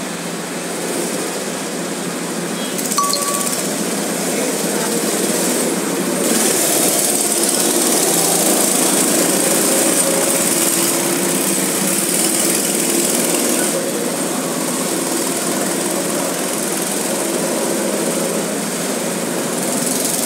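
Small go-kart engines running as several karts lap the track, getting louder for several seconds around the middle as karts pass close by.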